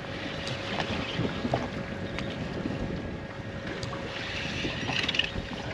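Wind buffeting the microphone over sea water slapping against the side of an inflatable boat, a steady rushing noise with a few faint clicks.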